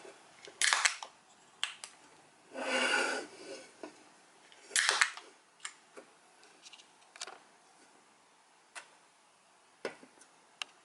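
Scattered clicks and knocks of kitchen things being handled, with a second-long rustling burst about 3 s in and another sharp rustle near 5 s.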